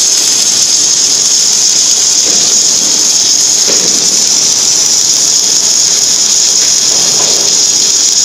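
Steady, loud high-pitched hiss that does not change.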